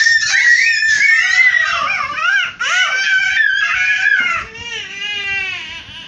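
Toddlers shrieking and squealing high-pitched in play, loud for about four seconds, then a quieter, drawn-out child's voice slowly falling in pitch.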